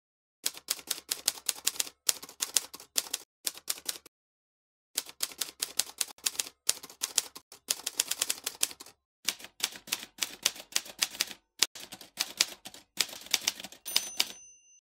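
Typewriter keystroke sound effect: runs of rapid clacking keys in several bursts with short pauses, and a short ringing tone near the end.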